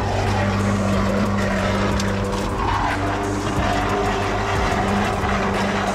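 Engine of a construction machine running steadily with a low, even hum, over the rush of flowing river water.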